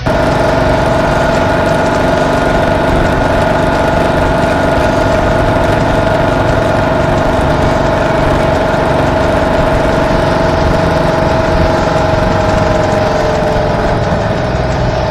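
Motorcycle engine running steadily while riding at road speed, with a steady high tone over it; the pitch sinks slightly near the end.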